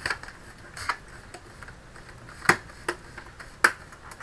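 Plastic snap clips of an all-in-one PC's frame clicking into place one after another as it is pressed shut by hand, about five sharp clicks in irregular succession.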